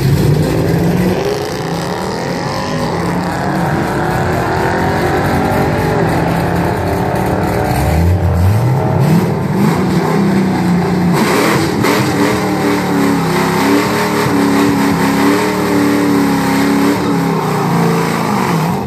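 Chevrolet Corvette V8 revving, pitch rising sharply about 8 seconds in and then held steady at high revs, a burnout that spins the rear tires to heat them before a drag launch.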